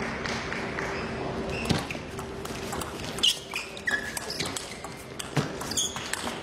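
Table tennis ball clicking off rackets and bouncing on the table in a doubles rally: a string of sharp, irregularly spaced clicks starting about two seconds in, over a faint steady hum of the hall.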